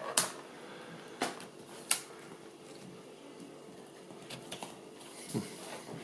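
Plastic clicks and handling noise from a laptop being worked on: three sharp clicks in the first two seconds, then a duller knock near the end.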